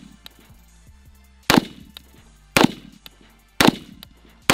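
AR-15-style rifle fired in slow single shots: four reports about a second apart, the first about a second and a half in, each trailing off in a short echo.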